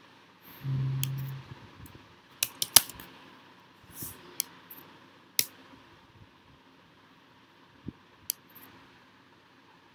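Scattered sharp clicks of laptop keystrokes and trackpad clicks as code is edited, a quick cluster of several about two and a half to three seconds in and single ones after. A brief low hum about a second in.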